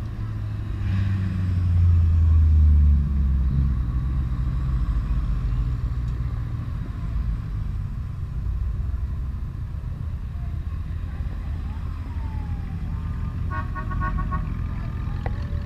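Cars driving past one after another, their engines making a deep low rumble that is loudest between about one and three seconds in. Near the end a car horn sounds a rapid pulsing toot of several notes.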